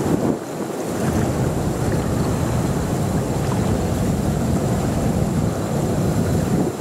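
Steady low rumble of jet airliners running at an airport, mixed with wind buffeting the microphone.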